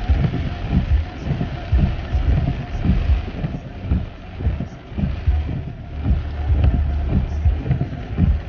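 Tesla electric car moving through storm floodwater: a heavy, irregular low rumble with uneven surges and thumps over a steady hiss, mixed with wind buffeting on the microphone.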